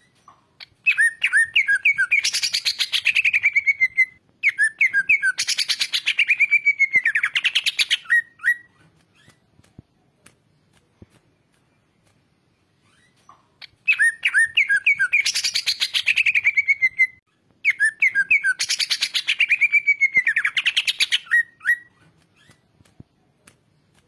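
Cucak ijo (leafbird) singing loudly in long phrases. Each phrase opens with a few separate notes and runs into a fast trill that slides down in pitch, lasting about four seconds. Two phrases come back to back, then a pause of about five seconds, then two more.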